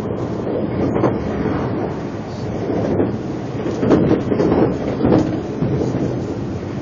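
Running noise heard inside a moving Narita Express train: a steady low rumble of wheels on track, with several short louder thumps.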